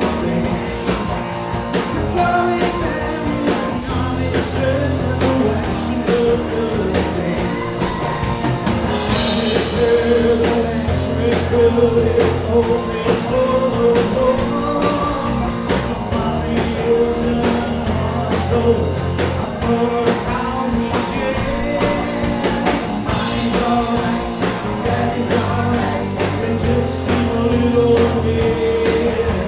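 Live rock band playing a song: a male lead singer over electric guitar, bass guitar and drum kit.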